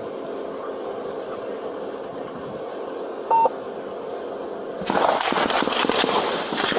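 A single short electronic beep a little over three seconds in, over a faint steady hum. From about five seconds in, loud rustling and scuffing of clothing and gear against a body-worn camera as the officer moves.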